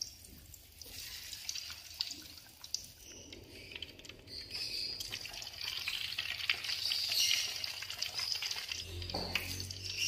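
Food deep-frying in hot oil: a steady sizzle full of small pops and crackles, getting busier and louder from about halfway through.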